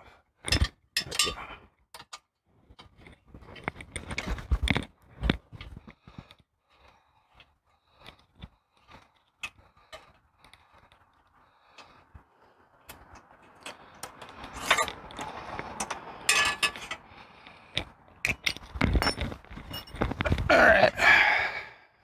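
Small metal clicks, clinks and scrapes of a hex key and bolts as a Tektro mechanical disc brake caliper is unbolted and handled. The clatter grows denser and louder over the last several seconds.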